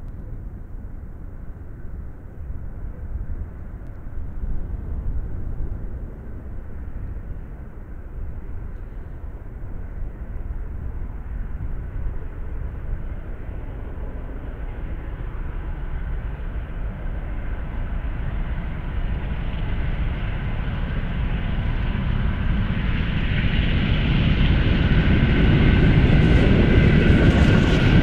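A steam-hauled mainline train approaching from a distance: a low rumble that grows steadily louder, with fainter higher tones coming through in the last few seconds as it nears.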